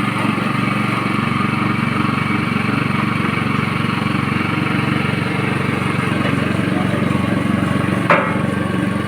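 A22 coconut milk press machine running steadily during a pressing, with an even motor drone. One sharp knock about eight seconds in.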